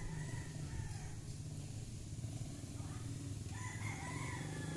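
Rooster crowing: one crow ends just after the start and another begins about three and a half seconds in, over a steady low hum.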